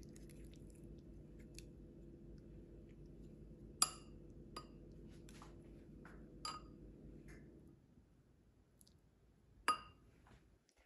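Metal spoon clinking against ceramic bowls while serving out stir-fried pepper strips: a few sharp, ringing clinks with soft scraping between them, the loudest about four seconds in and near the end. A low steady hum underneath stops about eight seconds in.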